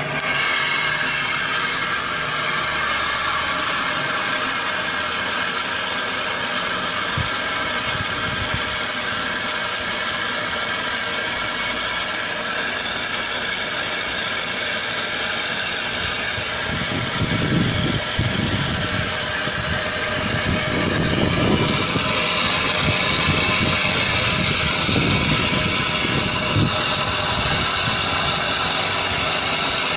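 Modified backpack sprayer pump running steadily under pressure, its wand spraying into a plastic water bottle with a strong high hiss over the motor's steady hum. Uneven low rumbling comes and goes in the second half.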